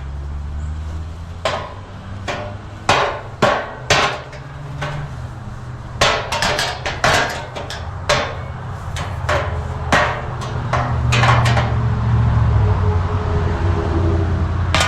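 Irregular sharp knocks and clanks of galvanized steel nesting-box panels being handled and knocked against each other. About a dozen strikes come singly at first, then in a quick run of rapid clatter through the middle.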